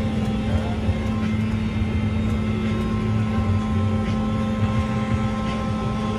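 Tractor engine running steadily under load, heard from inside the cab while it pulls a vertical-tillage tool across the field. The low rumble and the hum above it stay constant throughout.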